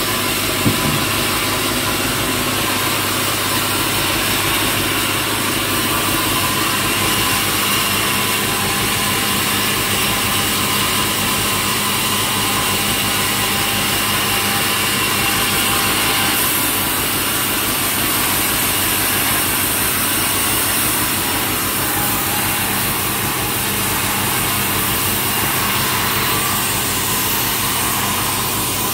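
Sawmill saw machine running steadily.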